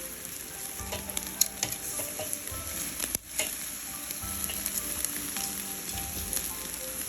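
Food sizzling on a barbecue grill: a steady hiss with scattered sharp pops and crackles, with a brief break about three seconds in. Soft background music runs underneath.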